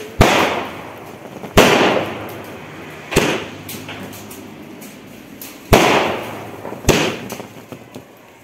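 Multi-shot sky shot firework cake firing aerial shells one after another: five sharp bangs at uneven gaps of one to two and a half seconds, each fading away over about a second.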